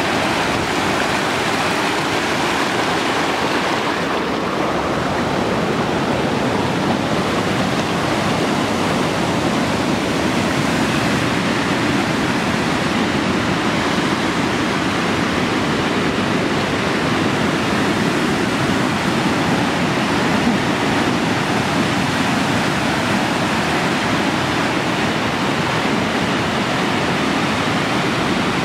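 Fast-flowing rocky mountain stream rushing steadily over stones, a continuous white-water rush.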